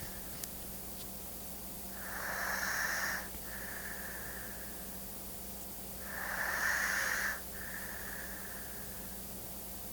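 Slow, regular snoring: two snore cycles about four seconds apart, each a louder noisy breath lasting about a second followed by a softer, longer breath. A faint steady hum runs underneath.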